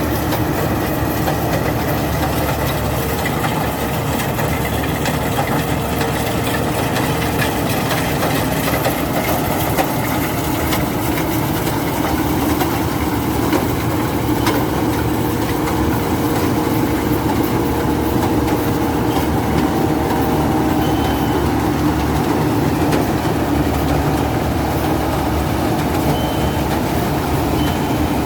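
Rice combine harvester running steadily, its engine and machinery making a continuous, even mechanical drone.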